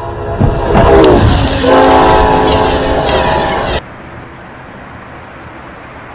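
Locomotive horn sounding as a train rushes past through snow, the chord dropping in pitch about a second in, over a loud rush of the train and snow. It cuts off suddenly just before four seconds, leaving a steady, quieter rushing noise.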